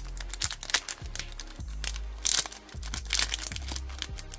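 Foil Pokémon booster-pack wrapper crinkling in the hands as it is torn open, a run of irregular crackles, with background music underneath.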